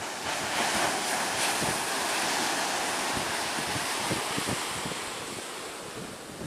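Sea surf breaking and washing in the shallows, with wind buffeting the microphone. The rush swells just after the start and eases off over the last couple of seconds.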